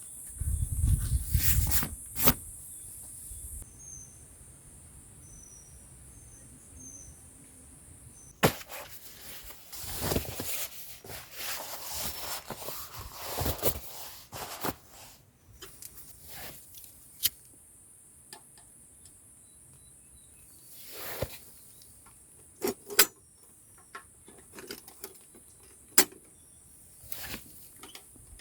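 High-pitched insect chorus, steady crickets-like trilling that drops out for a few seconds and comes back. Over it come bouts of rustling and a scattering of sharp clicks and knocks.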